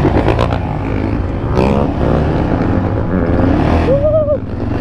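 Yamaha Raptor 700 quad's single-cylinder engine running at low revs with a steady low rumble as the quad starts to move off.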